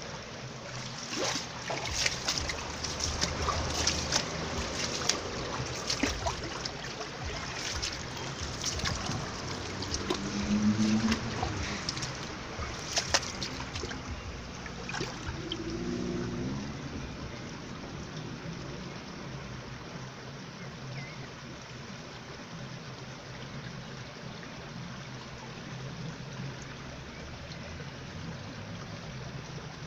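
Shallow stream water trickling steadily over stones. Over about the first half, scattered knocks and rustles come with it; after that only the water is heard.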